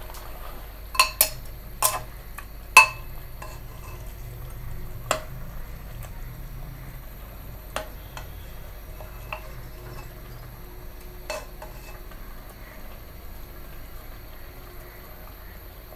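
A spoon clinking and scraping against a metal cooking pot as chicken is stirred in the curry. There are four sharp, ringing clinks in the first three seconds, then single quieter ones every couple of seconds, over a faint steady hum.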